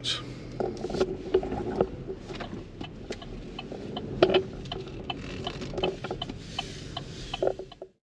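Car interior while driving slowly: a low steady rumble with many short clicks and ticks scattered through it.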